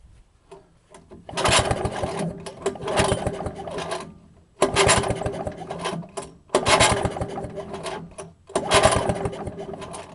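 Tecumseh outboard engine spun over four times on its recoil pull-starter, each pull a run of fast mechanical ticks lasting one to three seconds. It cranks without firing: the spark plug is out for a spark check and no spark shows.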